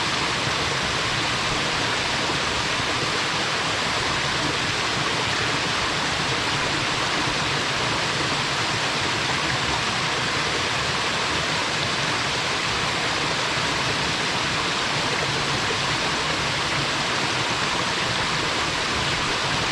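Small waterfall pouring steadily into its pool: a constant, even rush of falling water with no breaks or changes.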